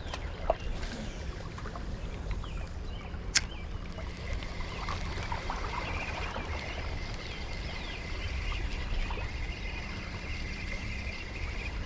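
Steady rush of a fast, flood-swollen river, with a single sharp click about three seconds in.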